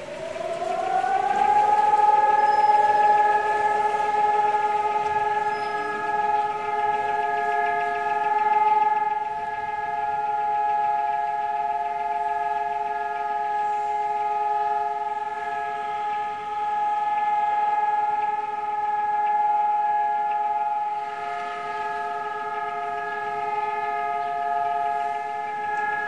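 Civil defense sirens winding up over the first couple of seconds to a steady, held chord-like wail, sounding as the Holocaust remembrance signal for a moment of silence.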